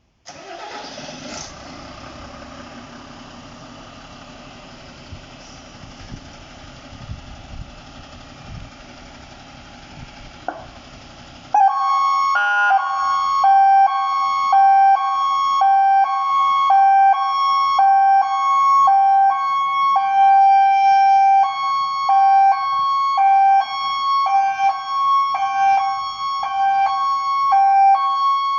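A fire engine's engine running with a steady rumble, then, about twelve seconds in, its electronic siren starts loudly, switching quickly back and forth between two pitches in a hi-lo pattern, with one longer held low note partway through.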